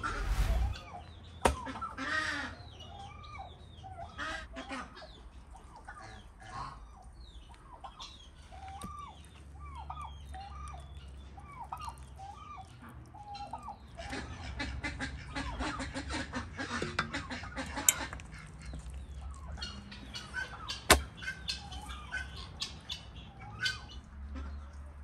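Farmyard poultry calling over and over in short clucking calls, with a low background hum and a few sharp knocks, the loudest late on.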